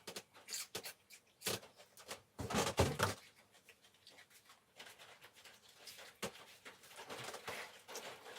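Scattered rustles, scrapes and light knocks from hands handling a plant pot, a plant label and potting soil, with a louder rustling scrape about two and a half seconds in, then fainter rustling.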